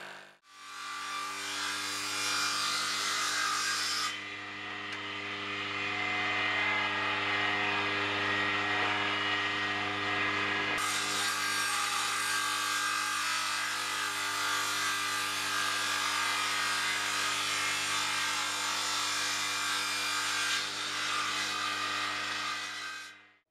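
Circular saw bench (table saw) running with a steady motor hum while its blade rips a block of cherry wood into blanks. The hiss of the cut changes in brightness as the wood is fed through. The sound starts sharply and stops abruptly.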